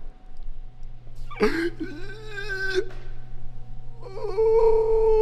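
A dog's two long, drawn-out cries. The first starts about a second and a half in and lasts just over a second. The second starts about four seconds in and is held at a steady pitch.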